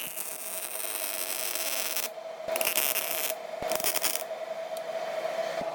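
MIG welder running a bead on an exhaust flange: a steady hissing crackle over a constant hum, with two short brighter spells of crackle about halfway through.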